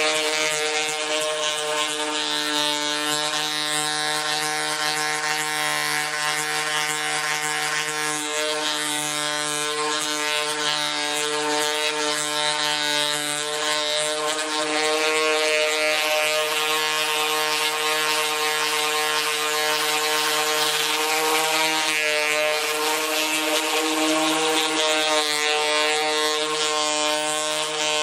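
Electric random orbital sander running steadily against a car's painted sheet-metal panel: a constant motor hum with the hiss of the abrasive pad grinding the paint down to bare metal.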